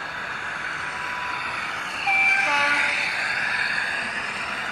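Sound-fitted (DCC) model diesel locomotive running, its onboard speaker giving a steady engine sound, with a short two-note horn about two seconds in: a higher note, then a lower one.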